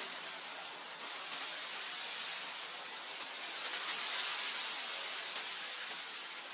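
Wind blowing through grass: a steady hiss that swells briefly about halfway through.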